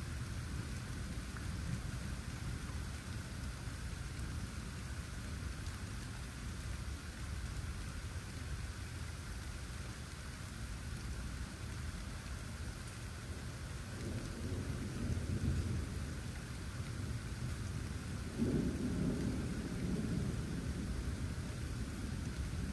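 Steady rain with low rolling thunder, which swells a little over half-way through and rises again more suddenly near the end.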